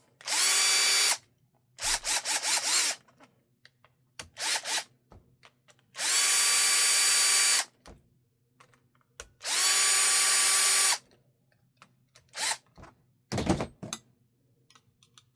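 Small cordless drill-driver whining in a series of trigger bursts. Each burst holds a steady pitch, and the longest last about a second and a half. There is a quick stuttering run of short pulses about two seconds in.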